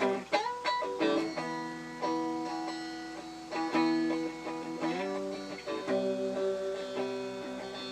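Guitar strumming chords and letting them ring, with a new strum every second or so between sung lines.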